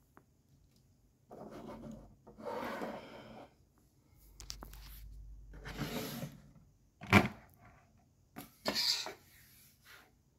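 Irregular rubbing and scraping noises, each lasting about a second, with one sharp click about seven seconds in.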